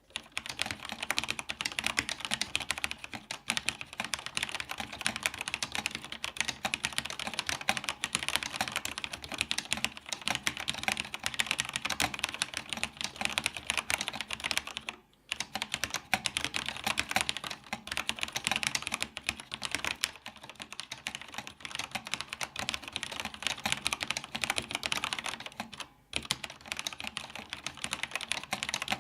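Fast, continuous typing on a vintage Cherry G80-0561 mechanical keyboard with linear Cherry MX Black switches, a dense run of key clacks. It breaks off briefly twice, about halfway through and again near the end.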